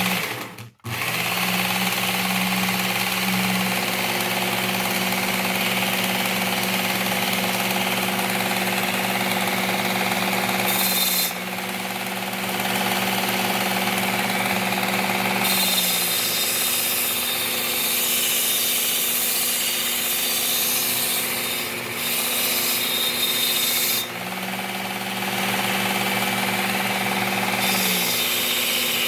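Work Sharp Ken Onion Elite belt sharpener running, a mulching mower blade's edge being ground on its P120 Cubitron abrasive belt. The sound is a steady motor hum under a grinding hiss, shifting in loudness and tone a few times as the blade is worked against the belt.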